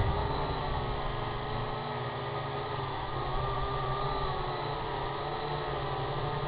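Syma X8HG quadcopter's motors and propellers whirring in flight: a steady hum whose pitch wavers slightly up and down, over a low rumble.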